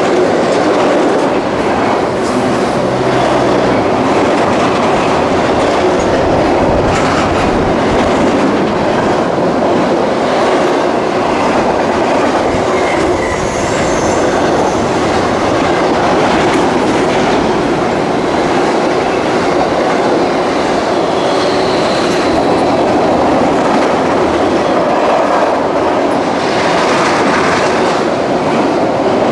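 Freight train cars rolling past on the rails, with a steady loud clatter of wheels over the track and a few brief faint high-pitched wheel squeals near the middle.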